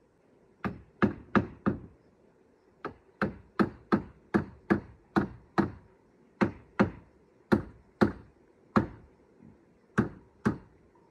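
Hammer blows on wood, about eighteen sharp knocks in uneven runs: three quick ones, a steady run of eight, then a few more spaced out, with short pauses between the runs.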